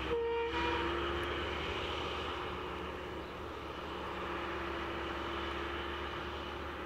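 Diesel locomotive engine of a CRRC Ziyang SDA-1 (CSR class) running under power as the locomotive pulls away, a steady drone that slowly eases as it recedes. A short two-note tone, stepping down in pitch, sounds in the first second.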